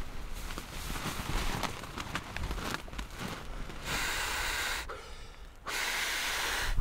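Nylon rainfly of a Nemo Hornet tent rustling and crinkling as it is pulled over the tent. Then two long breaths are blown hard into an inflatable sleeping pad, about four seconds in and near the end, with a short pause between them.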